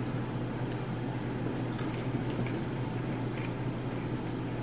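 Steady low hum of room tone, with a few faint soft clicks.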